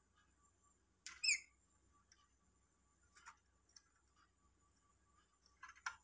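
Black-capped lory giving one short, downward-gliding squeak about a second in, with a few light scratches and clicks as it clambers on a concrete pole, a small cluster of them near the end.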